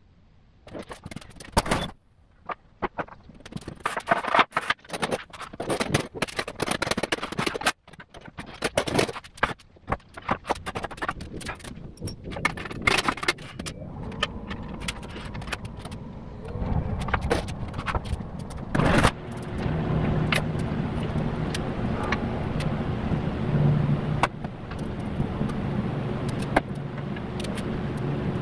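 Metal clanks, clinks and scrapes of tools and parts as a manual transmission is worked loose and lowered out from under a car on a floor jack. About halfway through the knocking thins out and a steady low hum takes over, with a few knocks still in it.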